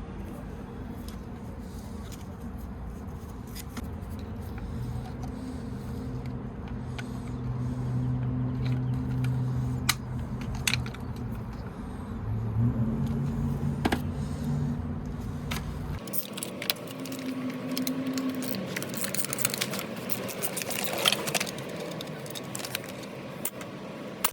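Small metal parts and tools clicking and clinking as the paint sprayer is taken apart, over a low hum whose pitch shifts. About two-thirds of the way through the hum drops out, and a burst of metallic jangling follows.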